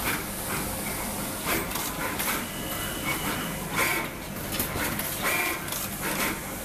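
SMT pick-and-place machine running at full speed with its lid closed: a steady low machine hum with sharp, irregular bursts of noise about once a second as the placement head picks and places components.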